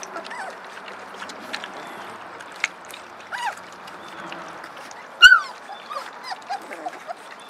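Vizsla puppies eating mush from metal pans: a steady wet lapping with scattered short whimpers and squeaks. About five seconds in comes one loud, high yelp.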